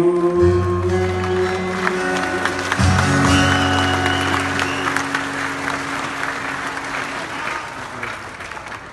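Acoustic guitar ringing out on its closing chords, a new chord struck about three seconds in and left to fade, while an audience applauds over it as the song ends.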